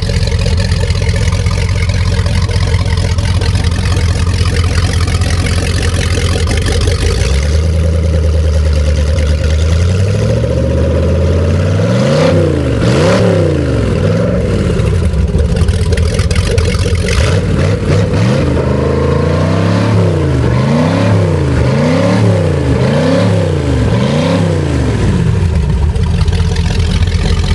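Fuel-injected 5.7-litre V8 marine engine idling steadily on a test stand, its exhaust spraying into a tub of water. About ten seconds in it is revved up and back down by hand, and later it gets a run of quick throttle blips, about one a second, before settling back to idle.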